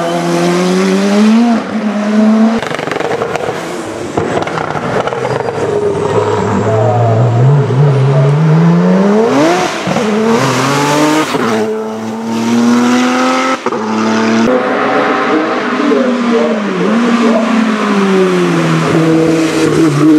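Racing car engines at full throttle, their pitch climbing through each gear and dropping sharply on shifts and braking downshifts, one car after another with abrupt changes between them: a closed-wheel sports prototype, a Porsche 911 race car and a historic single-seater. One long climbing run of revs comes near the middle.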